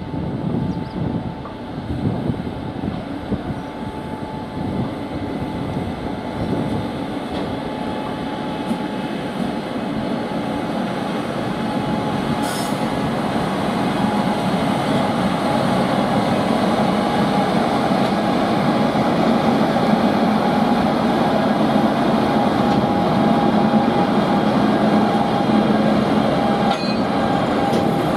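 Indian Railways WAG-9 electric freight locomotive hauling freight wagons past, with rolling wheel noise and a steady mid-pitched whine that both grow louder as it draws level.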